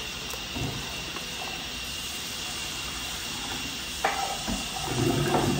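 Steady background hiss, with a brief click about four seconds in and a short low murmur near the end.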